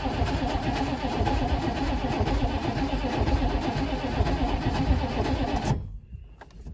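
Chevrolet 6.5 turbo diesel V8 cranking over on its starter without catching, then stopping abruptly about six seconds in. The engine has sat for years and will not start on cranking alone.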